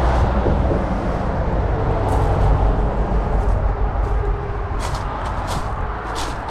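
Footsteps crunching on gravel, a step every half second or so from about two seconds in, over a steady low rumble.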